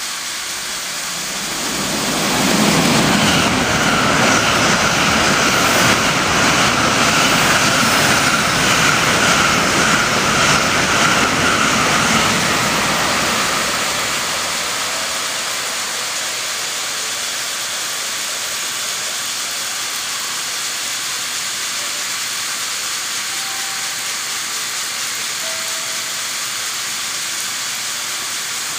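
N700 series Shinkansen passing through the station at speed: a rushing noise builds about two seconds in, stays loud for about ten seconds, then falls away. A steady hiss of the trackside snow sprinklers spraying water carries on after it.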